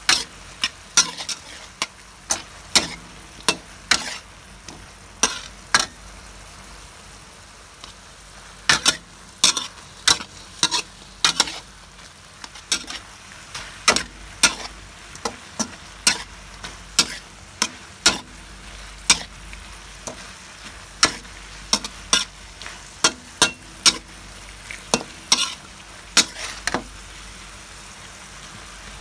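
Squid stir-frying with green peppercorns in a wok: a steady sizzle under the sharp, irregular clacks of a metal spatula scraping and striking the pan, about one to two a second.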